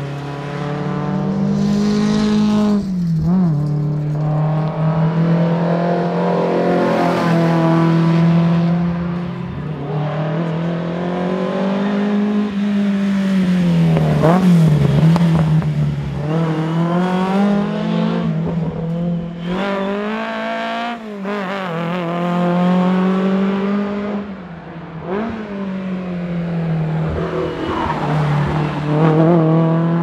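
Alfa Romeo GTV 2000's twin-cam four-cylinder engine revving hard through the gears, its pitch climbing and falling again and again over several drive-bys.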